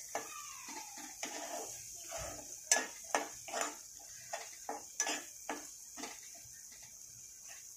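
Spatula scraping and knocking against a kadhai as gram flour is stirred and roasted into the masala. Sharp strokes come about two a second through the middle, then ease off near the end.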